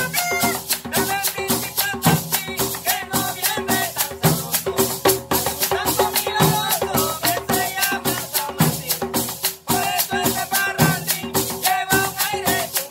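Instrumental traditional cumbia played live: a metal guache shaker keeps a steady fast rhythm over hand drums and a tambora, with a caña de millo cane flute carrying the melody near the start.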